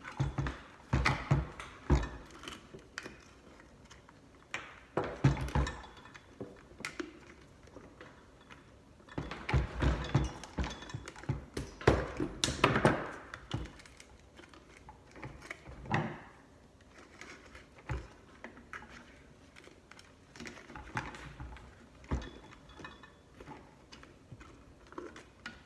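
Scattered clicks, knocks and light metallic rattling of hand tools and parts being handled while wiring a garbage disposal, coming in clusters with quiet gaps between.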